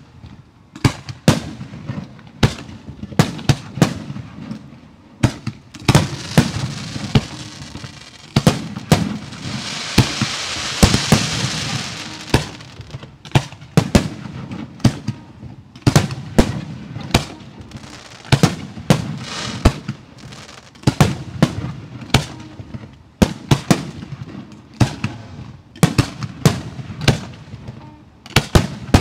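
Professional 1.3G fireworks display going off: loud aerial bursts in rapid succession, about two bangs a second, with a low rumble between them. A dense hiss swells for a few seconds in the middle.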